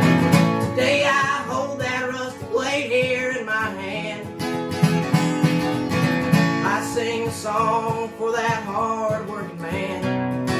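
Acoustic guitar playing an instrumental break in a slow country song: steady chords underneath, with a picked melody line running above them.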